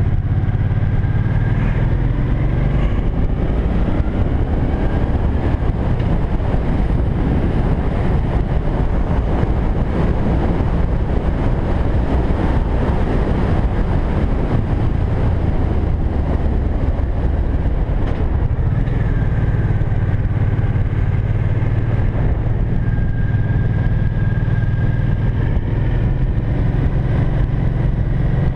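Cruiser motorcycle under way on a climbing road, its engine running steadily with road and wind noise.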